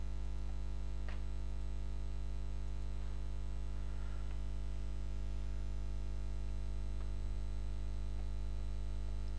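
Steady electrical mains hum with a low buzz, unchanging throughout. A few faint clicks, from a computer mouse picking objects, come about a second in and again later.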